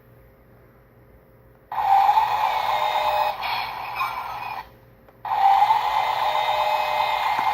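Remote-control toy bulldozer running, its small motor and gears making a loud whirring in two bursts of about three seconds each, with a short pause between them.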